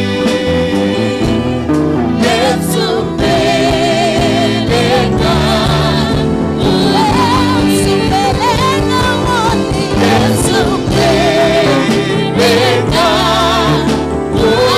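Gospel praise song: a woman sings lead with a wavering, ornamented voice, and other voices sing along over sustained electronic keyboard chords.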